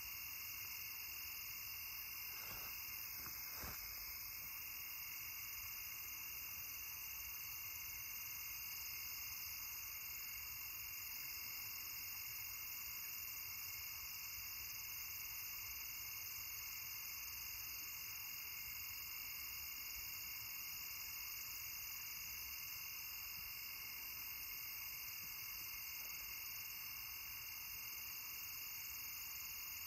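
Steady, high-pitched chorus of night insects trilling without a break, with two faint clicks a few seconds in.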